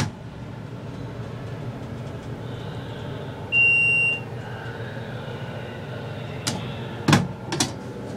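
Hydraulic elevator car running with a steady low hum. A single electronic beep lasting about half a second sounds a little before the middle, and a few sharp clunks come near the end.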